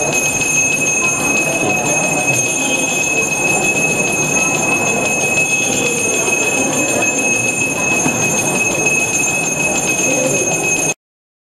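Temple bell rung continuously, a steady high ring over a dense murmur of background noise, cutting off abruptly about eleven seconds in.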